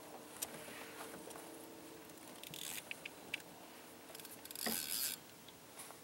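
Water splashing and lapping close by in short bursts, once about midway and more loudly near the end, with scattered small clicks over a faint steady hum.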